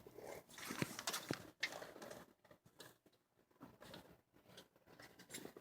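Faint scattered clicks and light knocks for about two seconds, then near silence.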